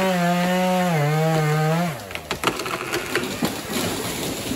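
Husqvarna 135e two-stroke chainsaw running at full throttle in the felling cut of a konara oak, its note dipping once and then falling away about two seconds in. The tree then cracks and splinters as it goes over, with branches snapping and crashing.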